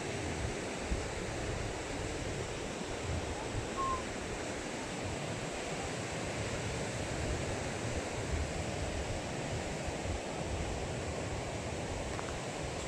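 Ocean surf breaking and washing up the beach, a steady rushing, with wind buffeting the microphone in uneven low rumbles.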